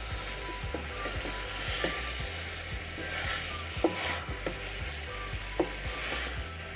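Pepper chicken sizzling in a hot pan as it is stirred with a spatula. There is a steady hiss, with irregular clicks and scrapes of the spatula against the pan.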